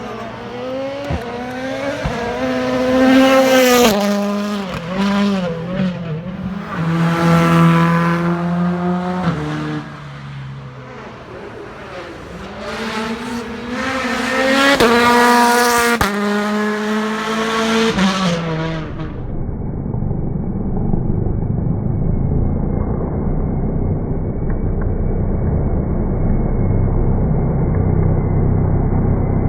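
2018 World Rally Cars' 1.6-litre turbocharged four-cylinder engines revving hard, the pitch climbing and dropping through gear changes as they drive past, loudest three times. About 19 s in the sound changes abruptly to a steady, muffled low rumble.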